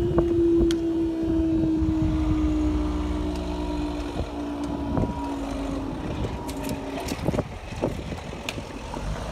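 Freight train passing: a steady drone that slowly drops in pitch and fades after about seven seconds, over a low rumble, with scattered knocks and clicks.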